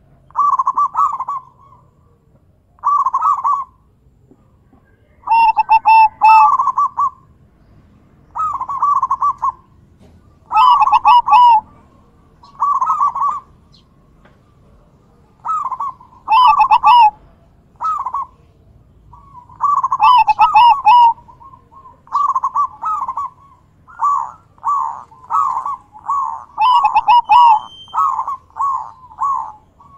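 Zebra dove (perkutut) cooing: rolling coo phrases about a second long, repeated every couple of seconds, with a run of short quick coos near the end.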